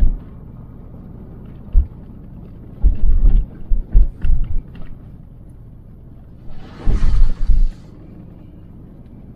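Dirt-road driving heard inside a Subaru Outback's cabin: a steady low rumble broken by sudden loud low thuds and jolts from bumps in the road. The thuds come in clusters about three seconds in and again about seven seconds in.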